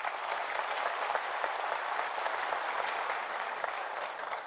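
Crowd applauding. It starts all at once and thins out slightly near the end.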